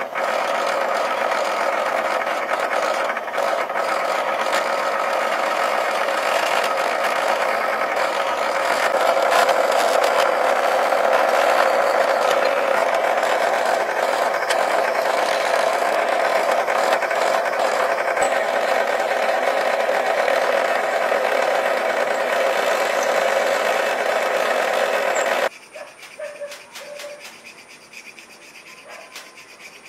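Drill press motor running steadily as the bit bores through a steel bar and then a wooden block. The motor sound cuts off suddenly near the end, leaving quiet, irregular scraping of a file on steel held in a vise.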